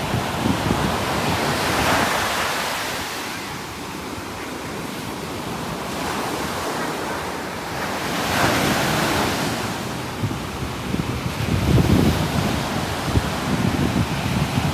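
Ocean waves breaking and washing ashore, the hiss swelling and ebbing in slow surges about six seconds apart. Wind buffets the microphone with low rumbling, strongest near the end.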